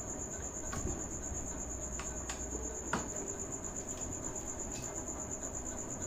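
A cricket chirping in a steady, even, high-pitched trill, with a few light clicks here and there.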